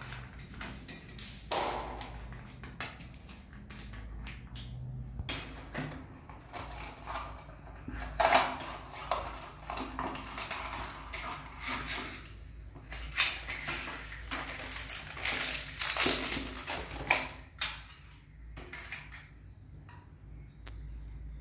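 Handling noise: paper packing and a cardboard box rustling, with scattered clicks and knocks of plumbing fittings and tools being picked up and set down.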